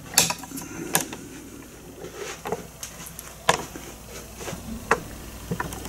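Light handling noise: a scattered series of small clicks and taps, about eight over several seconds, with faint rustling between them.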